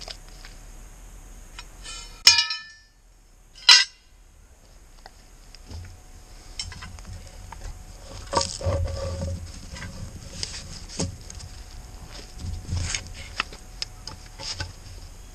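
Footsteps in wet mud and knocking as timber boards are handled around a drain pit, with scattered clinks and low thumps. Two loud sharp knocks come about two and four seconds in, the first with a brief ring.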